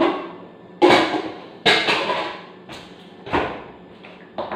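Hard knocks of kitchen work on a counter, about five in all, roughly a second apart, the first two the loudest, each trailing off briefly.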